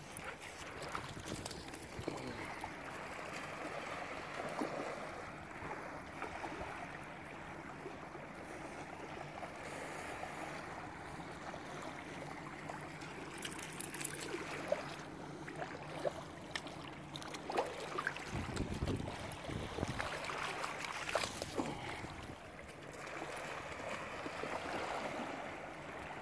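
Shallow river water splashing and lapping as a husky wades and runs through it, with small waves washing at the shore. A brief low rumble about two-thirds of the way in.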